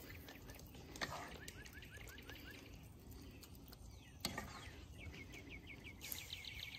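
Faint outdoor background with a bird singing runs of short, quick falling chirps: one run of about five notes a second near the start and a higher, faster run near the end. Two soft knocks, one about a second in and one past the middle, from the wooden spoon working spinach into the cast iron skillet.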